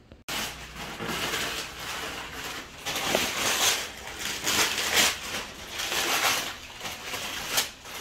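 Wrapping paper rustling and tearing in repeated rough bursts as presents are unwrapped, starting abruptly a moment in.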